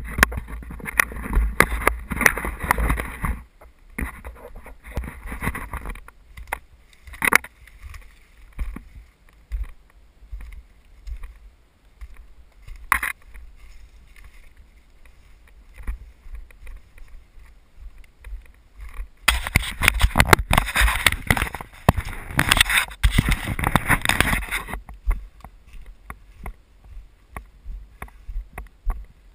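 Footsteps and rustling of someone walking along a leaf-littered forest trail and pushing through brush, with camera handling noise and a constant deep rumble on the microphone. The rustling comes in loud spells at the start and again for several seconds past the middle, with a few sharp snaps between.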